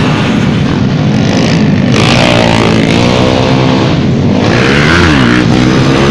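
Motorcycle engines revving hard and loud, their pitch rising and falling repeatedly, with one clear dip and climb about five seconds in.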